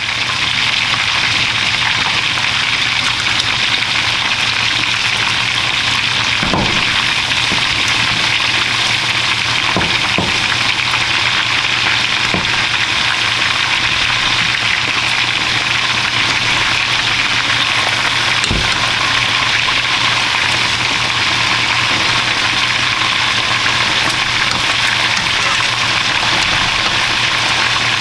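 Coated chicken pieces deep-frying in a pot of oil kept at medium heat: a loud, steady sizzle, with a few light taps here and there.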